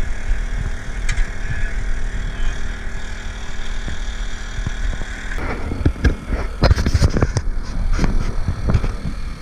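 Steady drone of a small engine running on the boat, with water splashing and a string of sharp knocks from about five and a half seconds in, as an arrowed fish thrashes at the surface beside the boat.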